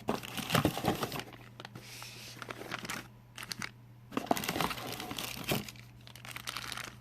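Packaging being handled and crumpled: irregular crinkling with sharp crackles in two spells, pausing briefly about three seconds in.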